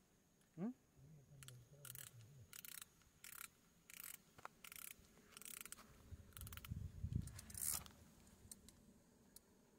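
Spinning reel being cranked in short, irregular bursts, its gears clicking faintly as line is wound in after a cast, with a dull low bump about seven seconds in.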